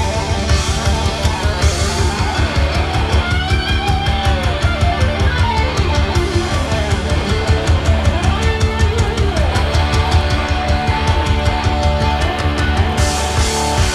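Rock band playing live: drum kit and cymbals driving steadily under electric guitar, with a cymbal crash near the end.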